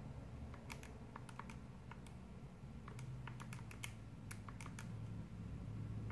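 Quick, irregular clicks of keys being pressed, in two runs with a pause of about a second between, over a low steady hum.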